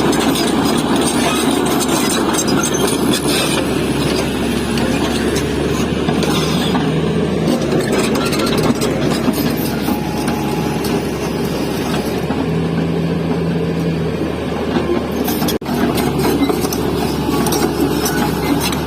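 Heavy diesel engine of a Tata Hitachi excavator running steadily under load, with a metallic rattle over its low drone.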